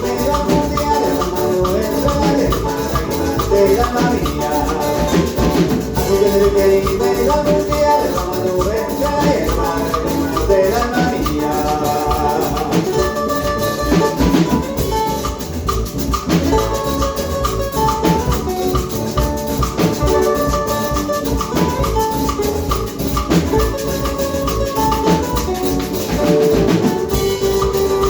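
Instrumental passage of a Latin American song with no singing: a melody of short stepping notes over steady drums and percussion.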